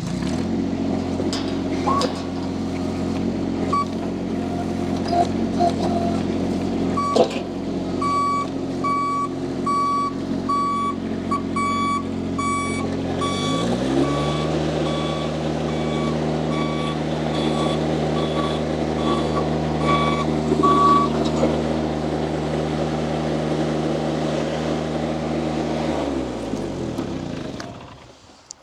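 Mini skid steer loader's engine running just after start-up. Its speed rises about halfway through and holds steady, then it winds down and shuts off near the end. A backup alarm beeps in on-and-off spells through the middle while the loader reverses.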